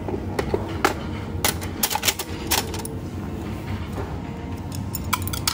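An irregular series of sharp clicks and knocks, about a dozen, over a steady low hum.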